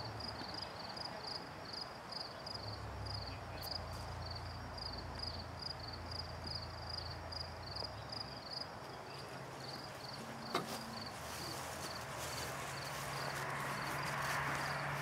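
An insect chirping in a steady rhythm, about three high chirps a second, over faint open-air background noise, with a single click once past the middle.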